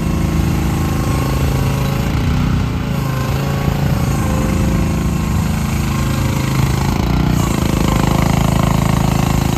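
The Rato 420cc single-cylinder gas engine of a Machpro MP15 mini excavator runs at working speed while the machine swings and works its arm. The engine note dips briefly about two seconds in and again around seven seconds, then runs a little louder near the end.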